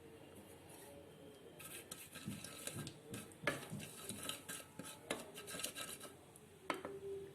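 Spoon or spatula scraping and clinking against a kadhai while stirring carom seeds in hot ghee, starting about a second and a half in, with a few sharper knocks against the pan.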